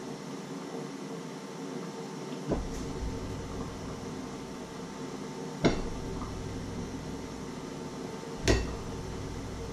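A fork clinking against a metal steamer pot and a china plate as cooked potatoes are lifted out and set down one at a time: three short knocks, the last two the loudest, over a steady background hum.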